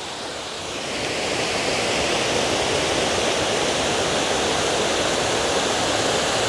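Water spilling down the stone steps of a step dam into a pool: a steady rush that grows louder over the first two seconds and then holds.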